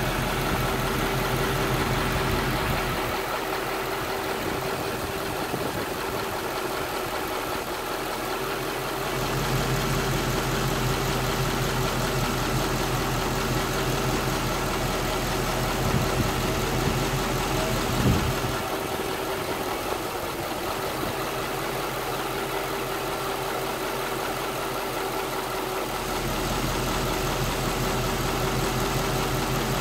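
Supercharged 5.4-litre V8 of a Mercedes-Benz E55 AMG (W211) idling roughly at about 640 rpm: a steady low drone whose deep rumble drops away twice for several seconds, with one short knock about eighteen seconds in. The owner suspects the rough idle could be plugs, an O2 sensor, the MAP sensor or the throttle body.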